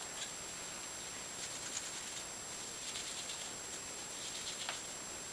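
Hair being teased at the roots: a few short, faint, scratchy rustles over a steady hiss.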